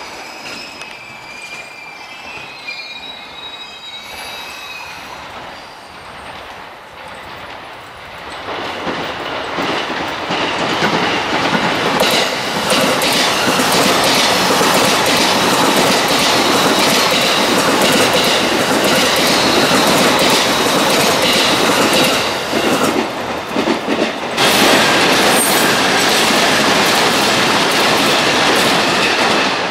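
JR East E233 series electric train passing close at speed: a loud, steady rolling noise with high-pitched ringing from the wheels on the rails. Faint high tones at first, then the sound builds over a few seconds and holds, dipping briefly near the end.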